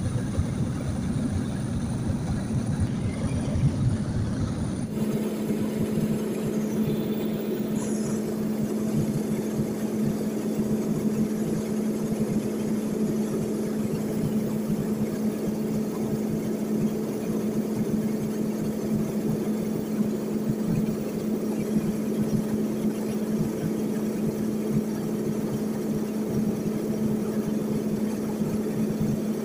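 Steady drone of a small propeller plane's engine and propeller heard inside the cabin in cruise. About five seconds in the sound changes abruptly, and from then on a steady low hum stands out.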